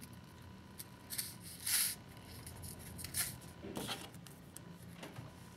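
Faint clicks, snips and rustles of small jewellery hand tools (wire cutters and pliers) working beading wire and a crimp cover, with a short rustle a little under two seconds in.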